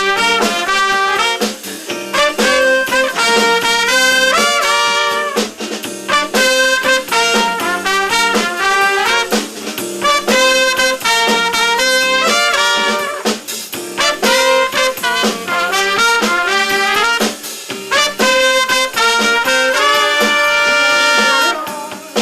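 A live band playing a jazz instrumental, with a horn lead in quick runs of notes that settle on a held note near the end.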